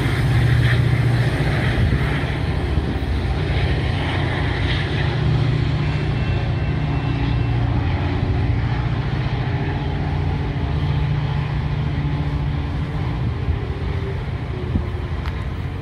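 A diesel train passing on the line, a loud, steady low rumble that slowly grows quieter toward the end.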